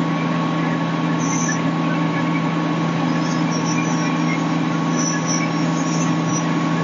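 Fire truck engine running steadily, a constant low hum with a thin high whine over it.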